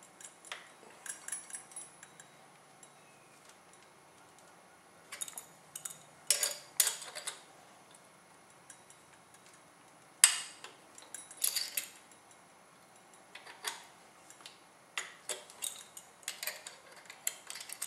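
Metal hand tools clinking, tapping and scraping against metal, in irregular clusters of sharp clicks, while working at a stuck screw on an HPI Baja 5B RC car.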